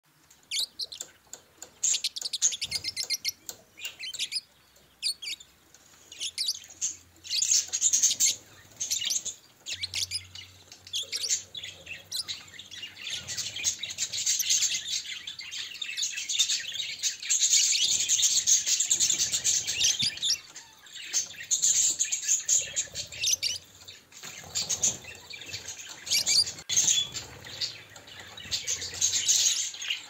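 Budgerigars chirping and chattering: a stream of quick, high chirps, sparser in the first few seconds and near-continuous through the middle.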